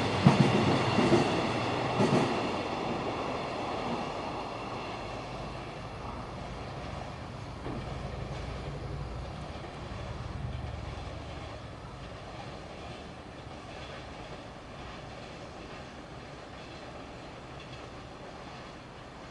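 Freight train wagons clattering over rail joints with a high steady brake squeal in the first couple of seconds, then the train's rumble slowly fading away as it draws off.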